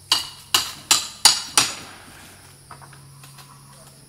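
Five quick hammer blows, about three a second, that then stop, followed by a few faint clicks.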